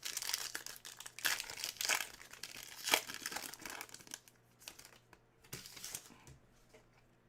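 Crinkling of a trading-card pack's plastic wrapper being handled, dense for the first four seconds or so, then thinning to a few scattered rustles and clicks.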